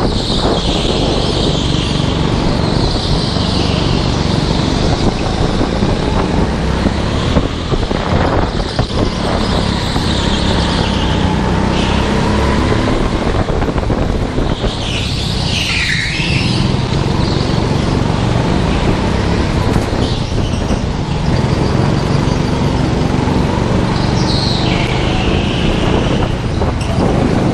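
Indoor go-kart engine running steadily at racing speed, heard from on board. Tyres squeal on the smooth concrete in the corners, loudest about sixteen seconds in and again near the end.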